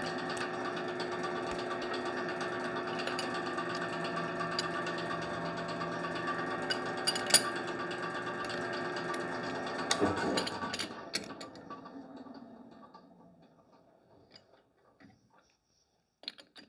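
Boye & Emmes 16-inch lathe running steadily with a few clicks and knocks, then switched off about ten seconds in and coasting down to a stop over a few seconds. A couple of light clacks come near the end.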